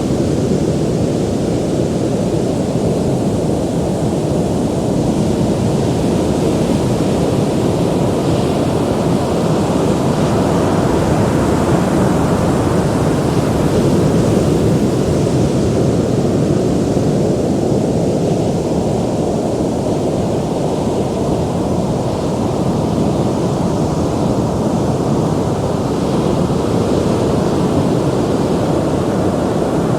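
Ocean surf: a continuous deep wash of breaking waves that swells and eases slowly.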